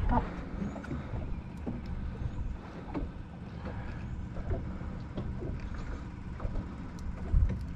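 Low, steady rumble of wind and water around a small fishing boat, with scattered light clicks and ticks as a crappie is handled and unhooked.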